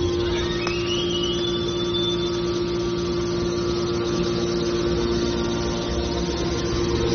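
Hydraulic metal baler's power unit (electric motor driving the hydraulic pump) running with a steady hum and whine. A higher whine rises in pitch in the first second, holds briefly and fades.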